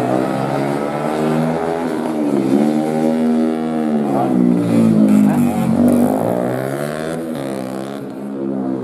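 Underbone racing motorcycle engines revving hard, their pitch rising and falling several times over, easing slightly near the end.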